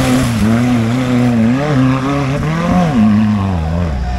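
Off-road 4x4's engine revving under load as it climbs a muddy track, its pitch rising and falling as the throttle is worked, then dropping sharply about three seconds in.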